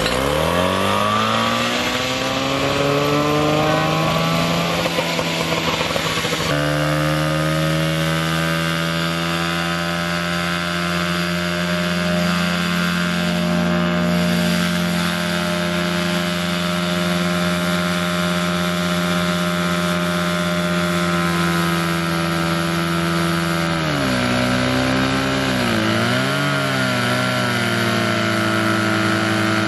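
Small petrol engine of a portable fire pump running at high revs: its pitch climbs over the first few seconds, shifts about six seconds in and then holds steady, before dipping and wavering briefly about twenty-four seconds in.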